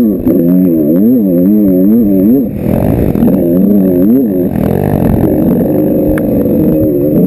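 Big-bore Yamaha YZ125 two-stroke dirt bike engine revving up and down over and over as the throttle is worked, its pitch swinging about twice a second. About two and a half seconds in, a rush of wind noise joins it and the revs settle steadier.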